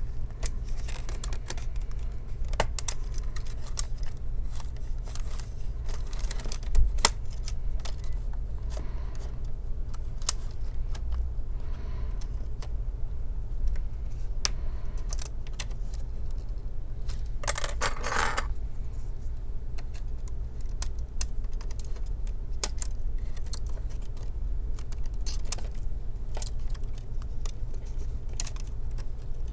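Scattered small clicks, taps and rattles of laptop plastic parts and cables being handled and pressed into place during reassembly, over a steady low hum. A short scrape or rustle comes about eighteen seconds in.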